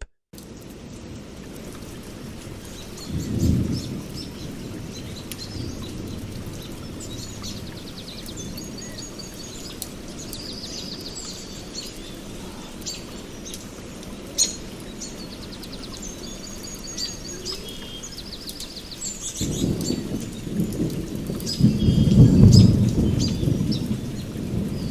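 Steady rain with birds chirping throughout. A short roll of thunder comes about three seconds in, and a longer, louder thunder rumble builds from about twenty seconds in.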